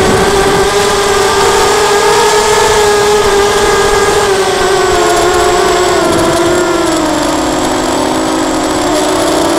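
The four brushless motors and propellers of a Lumenier QAV250 quadcopter whine steadily in flight, close up from a camera on the frame, over a rush of air. The pitch sags a little in the second half, then climbs again near the end.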